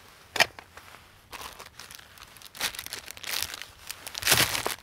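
Rummaging in a backpack, then the plastic wrapper of a Maruchan instant ramen packet crinkling as it is pulled out and handled, loudest near the end. A sharp click about half a second in.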